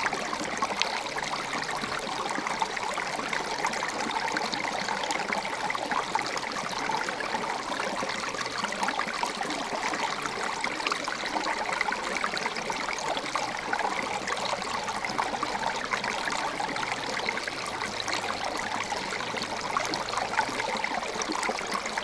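Shallow creek water trickling steadily over rocks and stones, a continuous rush flecked with many small splashes.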